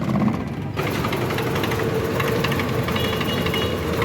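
Suzuki Wagon R's engine idling roughly with the air conditioning on, with uneven ticks and stumbles: it is misfiring under the AC load and close to stalling.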